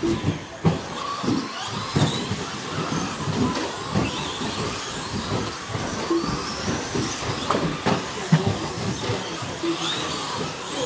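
1/10-scale electric stadium trucks with 21.5-turn brushless motors racing on an indoor carpet track: motors whining up and down in pitch as they accelerate and brake, with tires on the carpet and several sharp clacks of trucks landing or hitting the boards.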